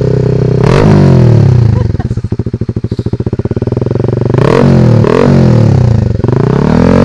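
Honda Sonic 150R's single-cylinder four-stroke engine running through a CLD Racing aftermarket exhaust, held at about 4000 rpm, then revved up and down three times, dropping to a pulsing idle in between.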